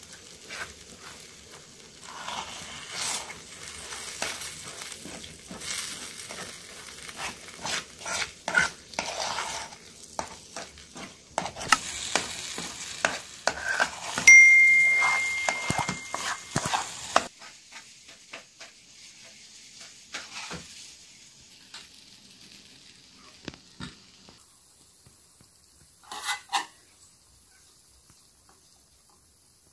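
Metal spoon stirring and scraping a wet egg-and-mince mixture around a frying pan over a gas burner, with sizzling and many clicks of spoon on pan. About 14 s in a steady high tone sounds for a couple of seconds. After that it goes much quieter, with a few separate clinks of metal on metal, the loudest near the end.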